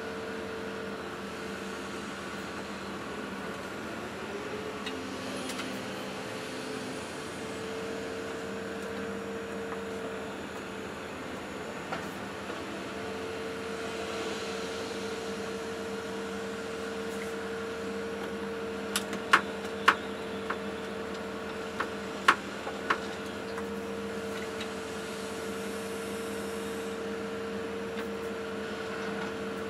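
Excavator engine and hydraulics running steadily, heard from inside the operator's cab: a steady hum with a constant whine. A handful of sharp clicks or knocks come close together about two-thirds of the way through.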